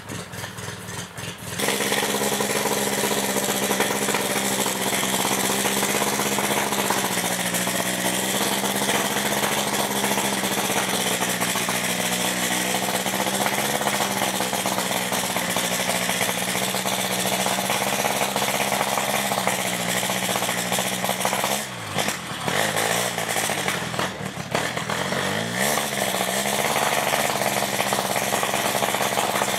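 A Polaris side-by-side's motor running hard at a steady high pitch while the machine works in a deep mud pit. Near the end the pitch dips and wavers twice before settling again.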